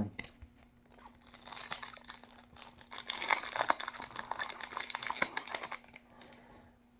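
Foil trading-card booster pack wrapper being crinkled and torn open by hand: a dense run of crackles from about a second in, stopping about six seconds in.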